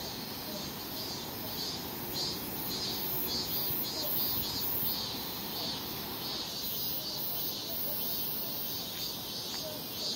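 Insects singing in the surrounding forest: a high-pitched buzzing that pulses evenly, about three times a second, over a steady low background noise.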